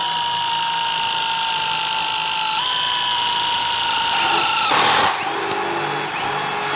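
Two cordless impact drivers, a Stanley FatMax and a Craftsman, driving long lag screws into a thick wooden beam. A steady high whine steps up slightly about two and a half seconds in, a short burst of noise comes about five seconds in, and a quieter, lower hum follows.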